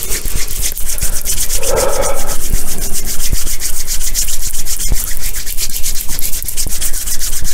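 Two palms rubbed together briskly and loudly close to the microphone: a fast, even swishing of skin on skin, several strokes a second.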